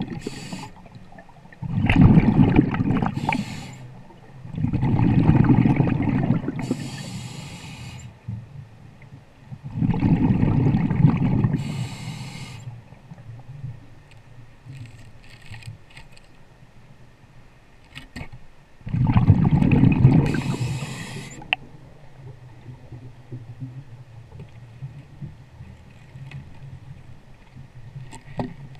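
A scuba diver breathing through a regulator: hissing inhales and bubbling, rumbling exhales, four breaths with a long pause between the third and fourth.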